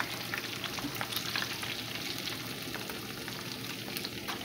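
Fish frying in a pan of hot oil: a steady sizzle with many small crackles and pops.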